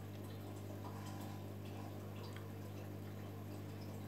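Steady low hum of aquarium pump and filter equipment, with faint irregular ticks and small water sounds over it.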